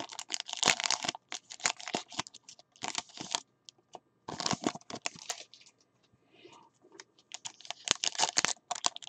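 Foil trading-card pack wrappers crinkling and tearing as packs are opened by hand, in irregular bursts of crackling with a pause of about two seconds past the middle.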